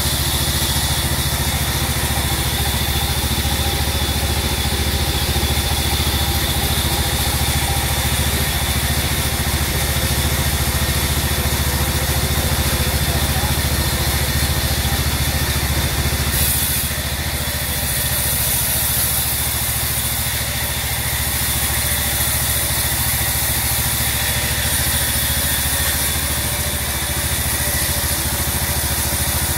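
Large band sawmill running steadily, its blade cutting lengthwise through a teak log as the log is fed along. The high hiss of the cut grows brighter a little past halfway through.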